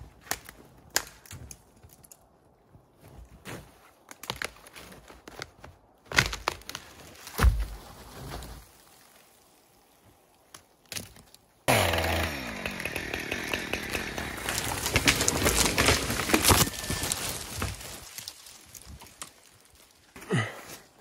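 Scattered knocks and crunches, then from about halfway through a chainsaw running hard and cutting into a tree trunk for about six seconds, its engine note dropping and recovering under load, before it tails off near the end.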